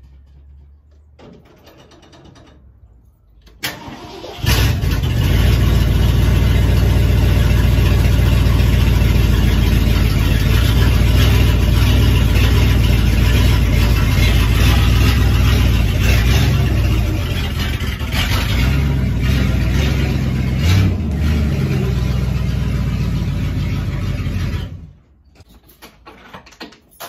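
An old pickup truck's engine starts about four seconds in and runs loudly and steadily, then cuts off suddenly near the end.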